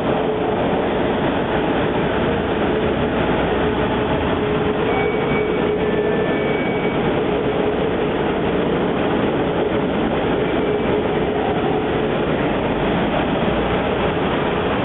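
Automatic double-head vertical glass drilling machine running: a steady mechanical noise with a faint constant hum underneath.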